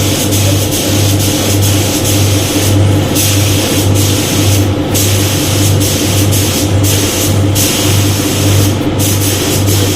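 Air spray gun hissing steadily as paint is sprayed, cutting out briefly about four times, over a low hum that pulses about twice a second.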